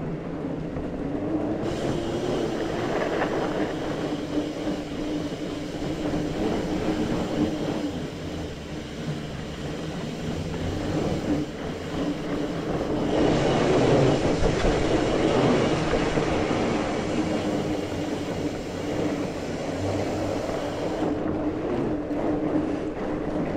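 Mountain bike being ridden along a dirt singletrack trail: a continuous noise of tyres and drivetrain, louder for a few seconds about 13 to 16 seconds in.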